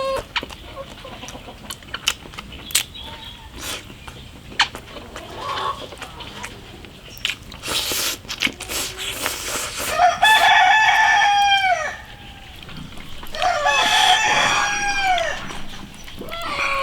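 A rooster crowing twice, about ten seconds in and again a few seconds later, each crow a long call that drops in pitch at the end. Light clicks and knocks come before the crows.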